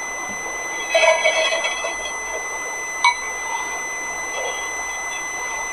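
Grated coconut being tipped into a dry non-stick frying pan, with a brief rattle about a second in and a sharp click about three seconds in. A steady high-pitched whine runs underneath.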